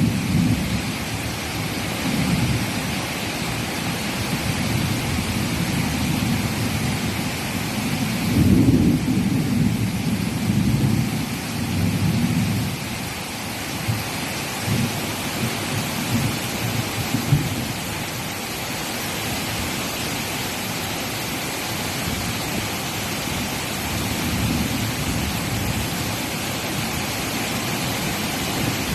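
Steady rain falling, with low rolling thunder that swells about a third of the way through and then fades back. There is one brief sharp knock a little past the middle.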